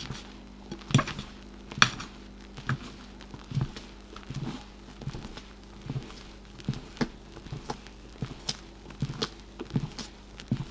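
A rubber spatula folding thick sponge-cake batter in a glass bowl: a run of soft wet strokes, taps and scrapes against the glass, roughly one to two a second.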